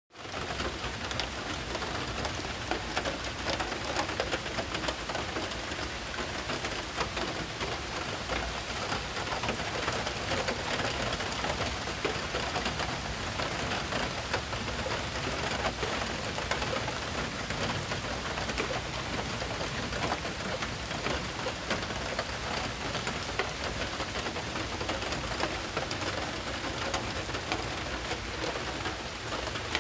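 Hurricane rain with hail starting: a dense, steady downpour of drops and hailstones striking surfaces, full of fine sharp ticks.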